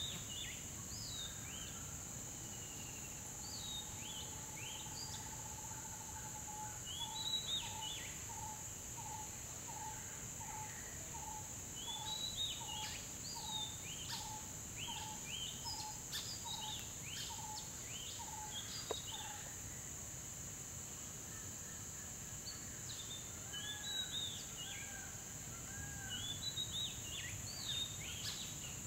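Wild birds calling in forest: scattered quick chirps and rising and falling notes, over a steady high-pitched hum. For about ten seconds from roughly a quarter of the way in, one bird repeats a single short note about twice a second.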